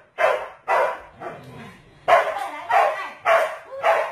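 A dog barking repeatedly: six loud, short barks roughly half a second apart, with a brief pause after the second.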